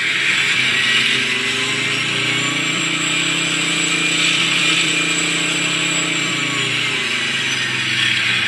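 Simulated Challenger 2 tank engine from an RC tank's TBS Mini sound unit, played through its onboard speaker: the engine note climbs from idle about two seconds in, holds at revs, and settles back down near the end, a smooth change with no audible steps. A faint high whine runs over the engine noise.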